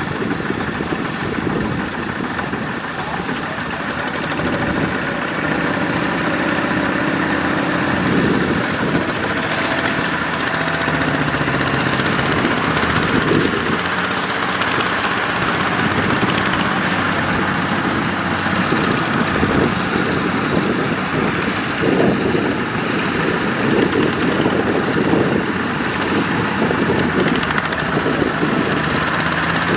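Two-wheel walking tractor's single-cylinder diesel engine running steadily while it hauls a loaded trailer, the pitch wavering slightly up and down.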